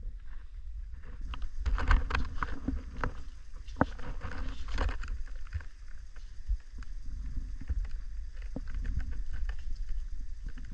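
Footsteps and creaks on the wooden plank floor of a stilt hut, with many short knocks over a steady low rumble. The knocking is busiest in the first half.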